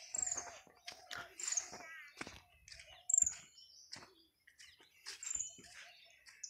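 Wild birds calling: short, high chirps that drop in pitch every second or two over a lower wavering note, with scattered soft clicks between them.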